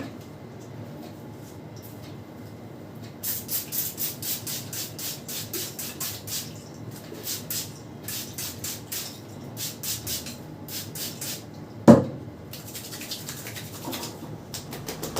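Hands working briskly over a woman's hair and scalp in a head massage: a quick run of swishing rubs, about four a second, then one sharp smack near the end, followed by softer rubbing.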